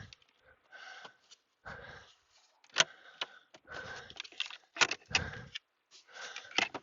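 Irregular clicks and rattles of hand tools and plastic trim being worked under a car's dashboard, with sharp clicks about three seconds in and twice near five seconds, and breathing close to a headset microphone in between.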